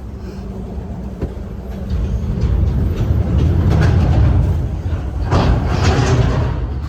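Loud low vehicle rumble with rattling. It builds from about two seconds in and fades near the end.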